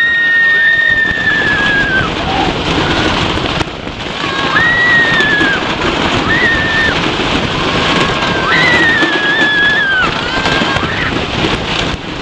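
Several people screaming, a string of long high screams one after another and overlapping, over a steady rushing noise.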